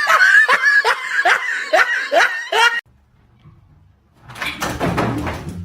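A person laughing in a run of short rhythmic bursts for nearly three seconds, then stopping, followed near the end by about a second and a half of noisy rustling.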